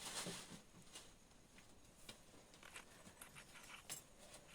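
Faint handling noises: a brief rustle, then scattered small clicks of a button-cell battery being fitted into the Boya BY-M1 lapel mic's battery holder.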